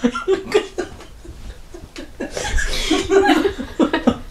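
A young woman laughing in short, breathy bursts, growing louder about two seconds in.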